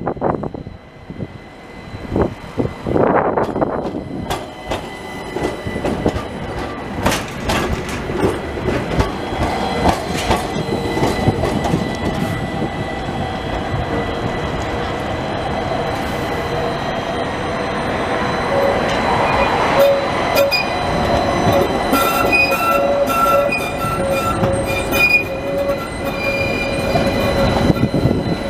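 AnsaldoBreda Sirio low-floor trams running on street track, with rolling rumble and clatter from the wheels on the rails. In the second half a passing tram's wheels squeal against the rails on the curve, a high stuttering squeal that comes and goes for several seconds.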